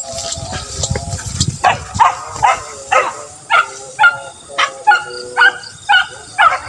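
Beagles barking in a steady run of short calls, about two a second, beginning after about a second and a half: hunting hounds giving tongue on the chase.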